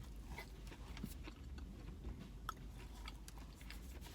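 A person faintly chewing a bite of oven-baked frozen pizza, with scattered small mouth clicks at irregular moments.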